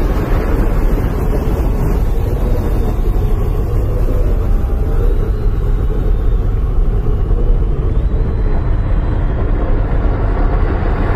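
Deep, steady rumble of a stormy ambient intro soundscape over a large arena sound system, with a faint wavering tone riding above it.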